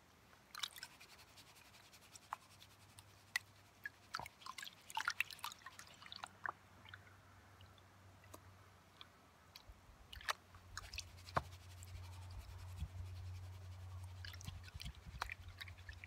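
Green plastic gold pan being dipped and swirled in a tub of water to wash the light sand off the top: scattered small splashes, drips and ticks of wet sand and gravel in the pan. A low hum comes in about two-thirds of the way through.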